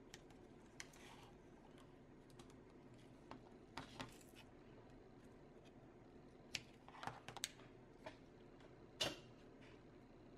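Faint, scattered clicks and light taps of hands handling an LED strip light and a thin fiberglass shell, pressing the strip into place and snipping it with scissors. The clearest taps come about two-thirds of the way through and again about a second before the end.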